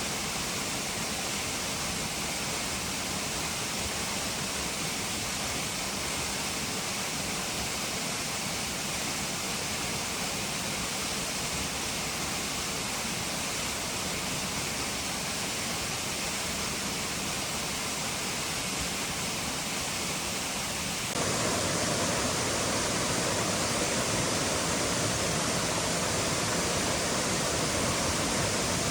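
Steady rushing water with no pauses. About two-thirds of the way through it jumps abruptly to a louder, fuller rush.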